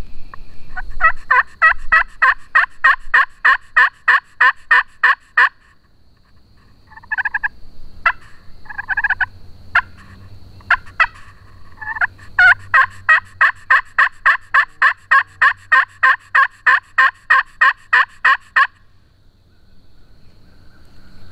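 Hen turkey yelps worked on a friction turkey call with a wooden striker: two long runs of quick, evenly paced yelps, about four or five a second, with a few scattered notes in between. A faint steady insect buzz sits high behind them.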